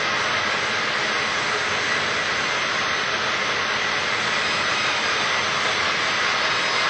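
Plastic bag making machine running: a steady, even mechanical noise with a faint high whine.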